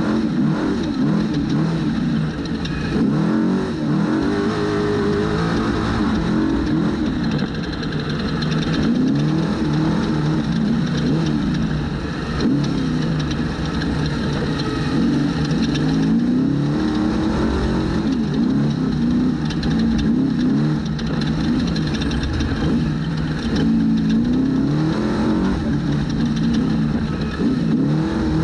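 Trophy truck engine under race throttle, its pitch climbing and dropping again and again as the throttle is opened and lifted, over a steady noisy rush.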